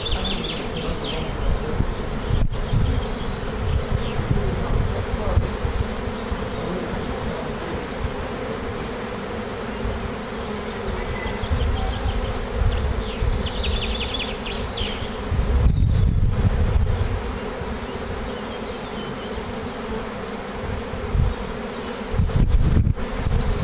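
Dense cloud of honeybees flying in the open, a steady loud buzzing hum: an agitated colony driven out of its nest under the roof by the smell of mirbane (nitrobenzene) essence. Low rumbles come and go under the hum, strongest about two-thirds of the way through.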